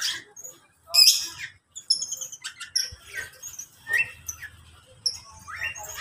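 Mixed cage birds in an aviary chirping and calling: a busy run of short high chirps with one loud call about a second in.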